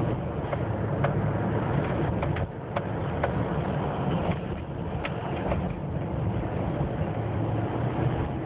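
Pickup truck's engine and tyre noise heard from inside the cab while driving at about 40 mph: a steady hum with a few faint clicks.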